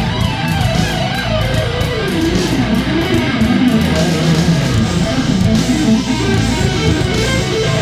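Background music led by electric guitar, with strummed chords and a moving melody line.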